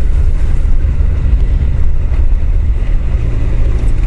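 Honda CBR1000F's inline-four engine running steadily while the motorcycle rides along a gravel road, heard from a helmet microphone, with heavy low wind and road rumble over it.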